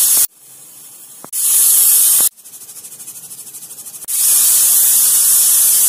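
Aluminium pressure cooker whistling: steam hisses loudly out past the weight valve in three bursts, the last one about two seconds long. Between them comes a quieter, fast sputtering of about six pulses a second as the pressure builds again. The whistles show that the cooker is at full pressure.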